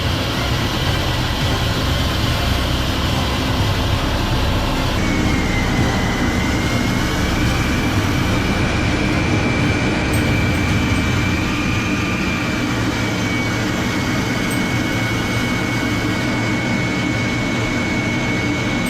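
Jet engine running: a steady, loud rush with a high whine over a deep rumble. The sound changes abruptly about five seconds in, after which the whine holds steady.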